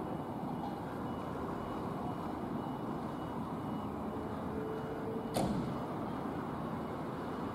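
Steady low rumble of a Scania P280 fire engine's diesel running in the station bay as the bay door rises, with a single sharp clack about five seconds in.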